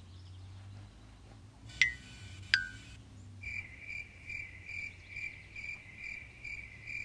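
Two short tones, each sliding quickly down and holding, about two seconds in. Then, from about three and a half seconds in, chirping crickets start abruptly, a steady rhythm of about two chirps a second.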